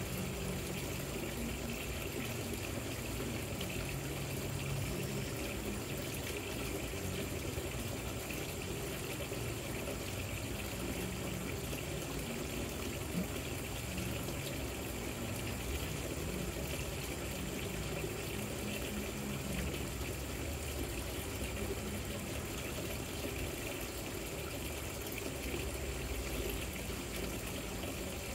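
Water trickling and splashing down a rock-style patio fountain, a steady flow with a low hum underneath.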